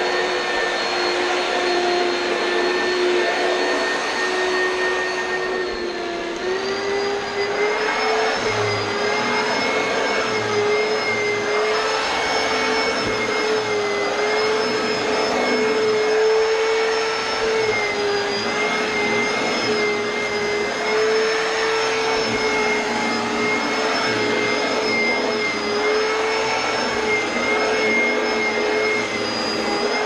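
Oreck XL2 upright vacuum cleaner running continuously, with a steady motor whine over the rush of air. The whine steps up slightly in pitch about six seconds in and then holds.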